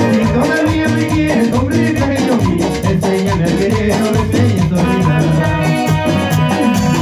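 Latin dance band music with guitar, a moving bass line and a steady drum beat, with a singing voice.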